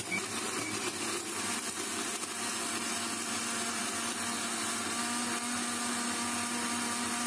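Electric mixer-grinder running steadily, blending litchis, ice cubes and water into juice: a constant motor whine over the churn of liquid in the jar.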